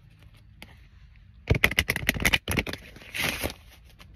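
Handling noise: a quick run of sharp clicks and rattles lasting about a second, then a short rustle.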